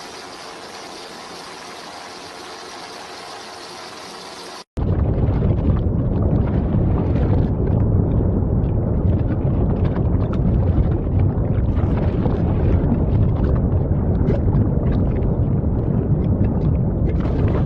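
A steady hiss with a faint hum, then, after an abrupt cut about five seconds in, a much louder low rumbling noise that runs on unbroken.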